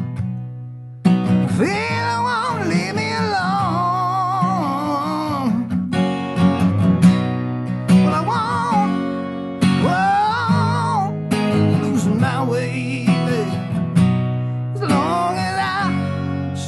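A song with acoustic guitar and a singing voice: the guitar is heard alone at first, and the singer comes in about a second in and carries on in phrases over the strummed chords.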